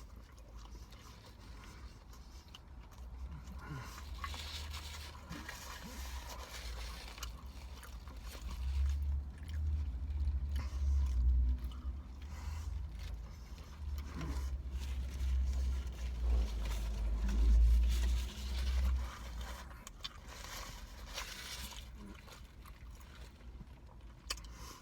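A person eating a chicken sandwich, with small mouth and chewing noises and the scrape and rustle of the sandwich and its wrapper. A low rumble, the loudest sound, swells in the middle and stops about twenty seconds in.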